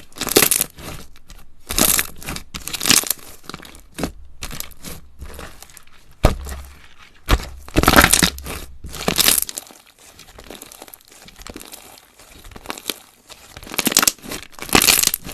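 Crunchy textured slime being squeezed, stretched and pressed by hand, giving uneven bursts of crackling, crinkling and popping with a few sharp snaps.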